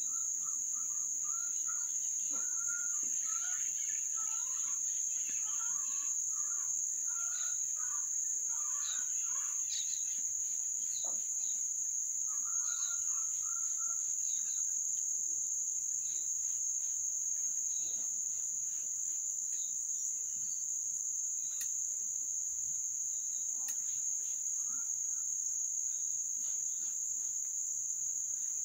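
Insects singing in one steady, unbroken high-pitched note, with fainter short chirping calls over it during the first half.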